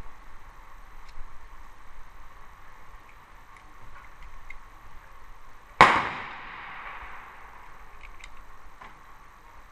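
A single gunshot about six seconds in, sharp and loud with a long echoing tail, from another firearm on the range. Light metallic clicks of 7.62x25mm cartridges being pressed into a Tokarev TT-33 pistol magazine sound throughout.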